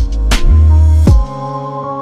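Background music: deep drum hits over held notes, with the beat dropping out a little over a second in and leaving only the sustained notes, quieter.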